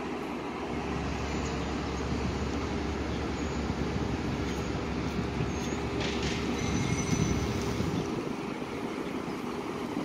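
Low rumble of a large vehicle that swells about a second in and fades near the end, with a faint high-pitched squeal partway through.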